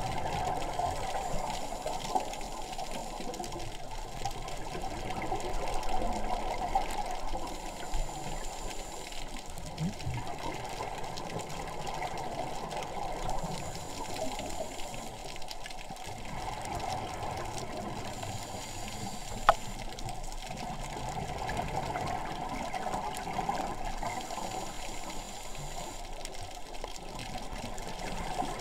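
Underwater ambient noise picked up through a camera's waterproof housing: a steady rush of water, with a faint high hiss that comes back about every five seconds and a couple of sharp clicks.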